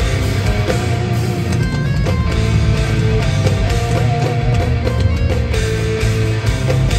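A progressive metal band playing live and loud: an instrumental with electric guitar over drums and a heavy low end.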